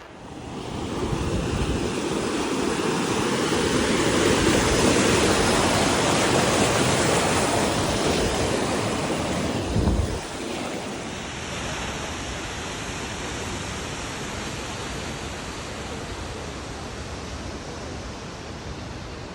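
Steady roar of rushing water from a waterfall, swelling over the first couple of seconds. About ten seconds in there is a brief thump, after which the roar carries on more quietly.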